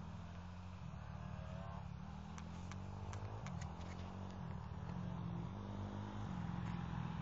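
Toyota Corolla KE35 racing on the ice in the distance, its engine faintly revving up and down beneath a steady low wind rumble on the microphone. A few sharp clicks come between about two and four seconds in.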